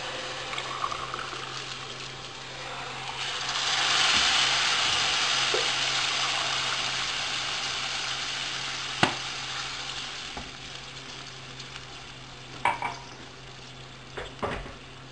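Hot water from a kettle poured into a pan of sautéed rice, onion and pine nuts, sizzling and hissing as it hits the hot oil. The sizzle swells about three seconds in and slowly dies away, with a few sharp knocks near the end.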